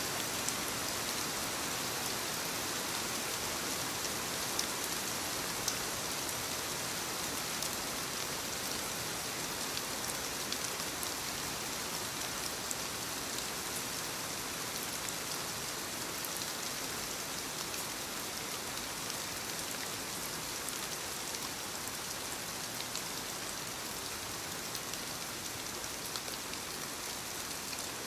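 Steady soft rain falling on leaves: a dense, even patter with small individual drop ticks scattered through it.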